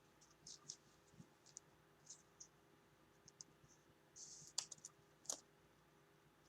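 Faint clicks and light scratching of a trading card being handled, with a few scattered ticks and a brief cluster of sharper clicks about four to five seconds in; otherwise near silence.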